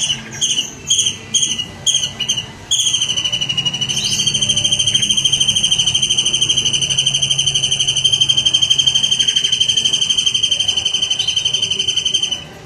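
A songbird's recorded song: a quick run of short, high chirps, then one long, rapid trill held at a steady pitch for about nine seconds.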